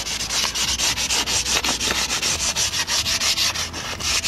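An abrasive pad is rubbed by hand in quick back-and-forth strokes, several a second, over the steel exhaust pipe of a BMW R1200C. It is scouring off surface rust and flaking paint before the pipe is repainted.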